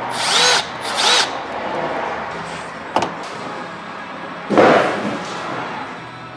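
Small cordless drill driving a screw in two short bursts, its motor whine rising and falling each time. A sharp click follows about three seconds in, then a louder short noise about four and a half seconds in.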